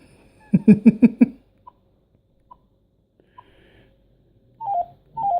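A short chuckle, then the key beeps of a Binatone cordless phone handset as its menu is scrolled: three single short beeps about a second apart, followed by two quick falling two-note tones near the end.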